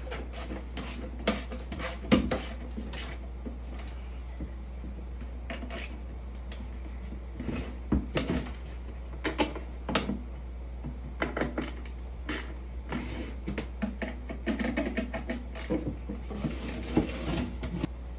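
Irregular clicks, taps and knocks of a slatted box being put together with a hand screwdriver, coming more often near the end. A steady low hum runs underneath.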